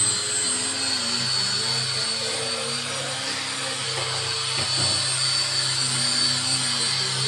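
Electric woodworking power tool running steadily, a continuous motor whine with a low hum underneath.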